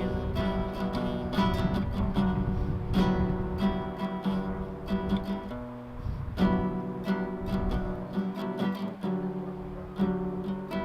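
Acoustic guitar strumming chords, with a short break about six seconds in before the strumming picks up again.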